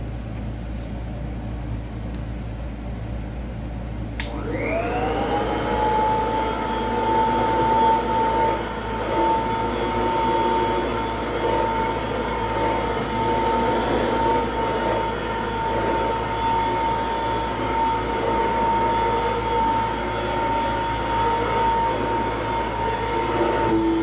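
Royal 153 vintage upright vacuum cleaner with a little 3-amp motor, switched on with a click about four seconds in; the motor whine rises and settles into a steady, smooth high hum, its motor and brush roll bushings freshly lubricated. A lower steady hum joins just before the end.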